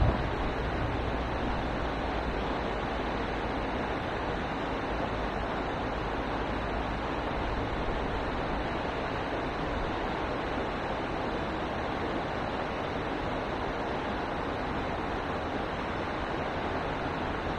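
Fast-flowing river water rushing steadily, with a brief thump right at the start.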